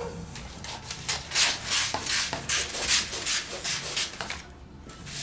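Large sheet of pattern paper rustling and scraping against the tabletop as it is folded and handled, in a string of irregular rustles that die away near the end.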